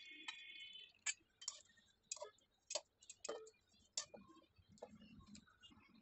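Steel spatula clicking and tapping against the kadhai and a steel bowl as cooked chicken pieces are lifted out of the gravy: sharp, irregular clicks a few times a second, the first one ringing briefly.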